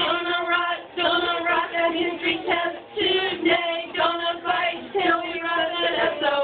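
Women singing together in unison, a simple tune in short phrases with held notes and brief breaks between lines.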